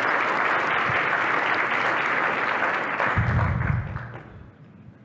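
Audience applauding, dying away about four seconds in, with a short dull low thump just before it fades.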